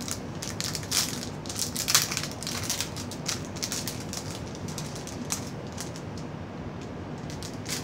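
Small packaging crinkling and crackling in the hands as a collector's pin is unwrapped, in irregular clicks that are busiest in the first few seconds, with the loudest snap about two seconds in.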